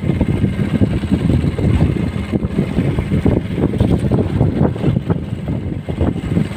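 Outrigger fishing boat's engine idling in a steady low rumble, mixed with rough-sea and wind noise.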